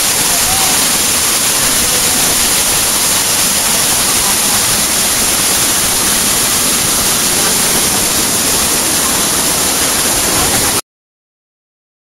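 Waterfall cascading over rock, a loud steady rush of falling water close to the microphone. It cuts off suddenly near the end.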